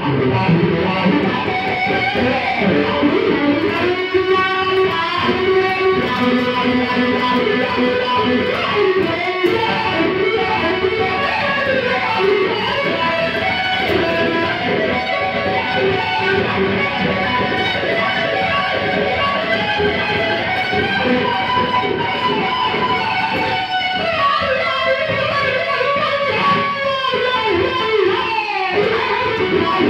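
Stratocaster-style electric guitar played continuously through a wah pedal, with picked notes and strummed chords.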